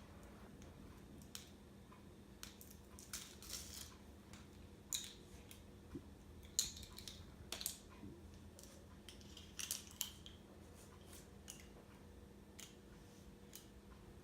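Faint, irregular light clicks and rustles of craft materials being handled on a table: a marker and paper being picked up and moved.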